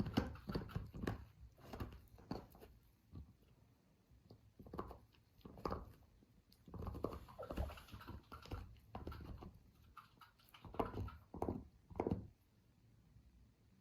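A Labradoodle puppy chewing and gnawing on a chew toy: irregular crunching and rustling bites that stop about twelve seconds in.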